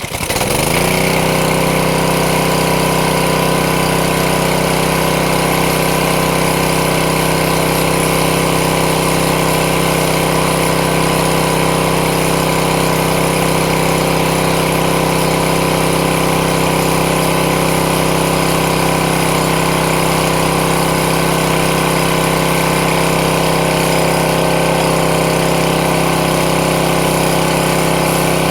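Craftsman 163cc lawn mower engine catching right away, spinning up within about a second, then running at a steady speed: the engine now starts after its no-start fault was fixed.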